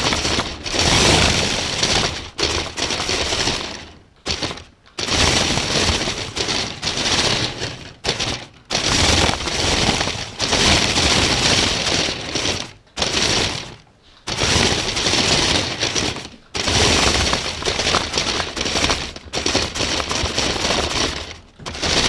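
Lego Technic remote-control race car driving, heard from on board: the electric motor and plastic gears whir and the plastic parts rattle loudly, in runs of a few seconds that stop briefly several times as the car halts and sets off again.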